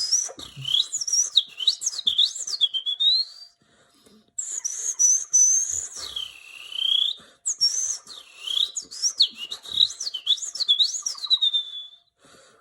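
Whistled imitation of a European robin's song: high, sliding notes that swoop down and back up, then run into quick up-and-down warbles. It comes in three phrases with short breaks between them.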